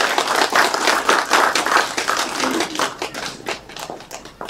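A small crowd applauding with many hands clapping, the claps thinning out and fading over the last couple of seconds.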